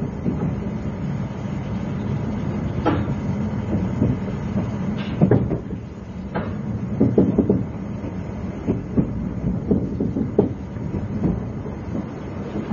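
Cabin sound inside a JNR 20-series sleeper coach: a steady low hum with irregular clicks and knocks scattered through it, thickest in the middle.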